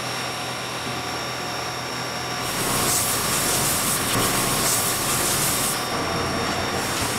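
A spray gun hissing in one long burst of about three seconds, starting a couple of seconds in, and briefly again near the end, as parts hanging on a line are coated. Underneath runs a steady machine hum with a few faint steady tones.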